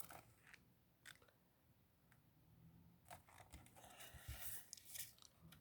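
Near silence: room tone with a few faint clicks and rustles, more of them in the second half.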